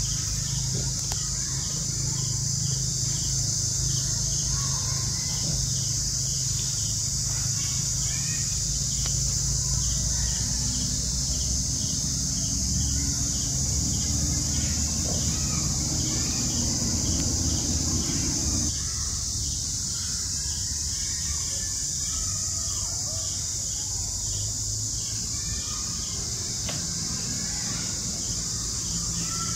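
Steady, high-pitched drone of insects, with a low rumble beneath it and a few faint chirps. The rumble drops away abruptly about two-thirds of the way through.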